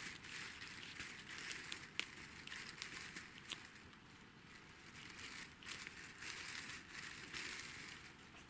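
Floral tape being stretched and wound by hand around a wire tree trunk: faint crinkling with scattered small crackles and clicks, quieter for a moment around the middle.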